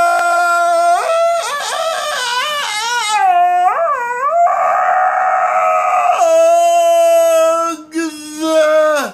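A man singing loudly on his own with no accompaniment, holding long high notes and bending through quick runs in between. The voice turns rough and strained for a couple of seconds in the middle, and the singing cuts off suddenly at the end.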